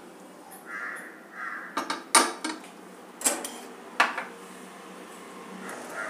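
Metal pressure cooker and its stainless-steel inner container being handled: two short squeaky scrapes, then several sharp metal clinks.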